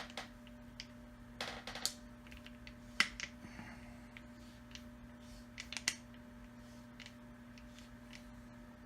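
Scattered clicks and small metallic taps from a suppressor being handled as its threaded sections are worked loose by hand: a brief rattle about one and a half seconds in, a sharp click at about three seconds, and a few more clicks near six seconds.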